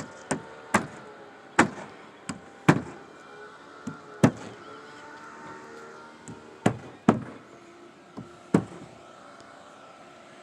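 About a dozen sharp knocks or clacks, irregularly spaced, each with a short ringing tail, over a faint steady hum.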